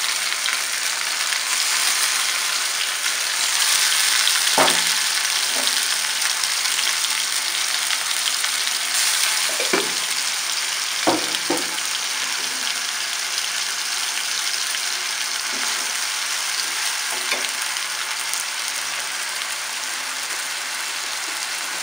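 Oil sizzling steadily in a kadai as sliced brinjal, onions and ginger-garlic-fennel paste fry and are stirred, with a few sharp knocks against the pan.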